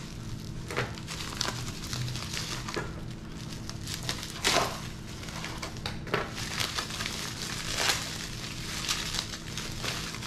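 Plastic bubble wrap crinkling and rustling as it is pulled apart by hand. The crackles come irregularly, the loudest about four and a half seconds in.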